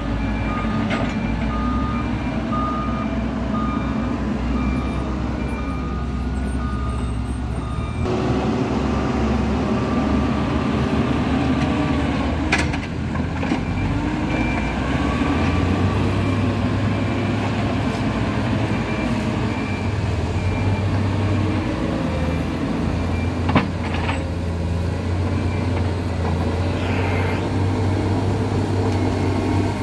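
Diesel engines of heavy road-building machines (grader, backhoe loader, soil roller) running steadily, with a reversing alarm beeping at an even pace, plain during the first eight seconds and fainter later. A few sharp knocks cut through, the loudest about 24 seconds in.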